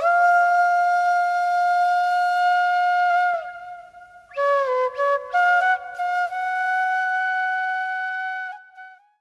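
Solo flute playing a slow melody: quick ornamented notes leading into long held notes, with a pause of about a second in the middle.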